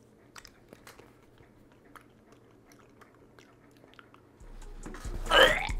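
Faint chewing of a Bean Boozled jelly bean, small wet mouth clicks. Near the end, a short, loud gag from the eater at the revolting flavour. A low steady hum comes in about four seconds in.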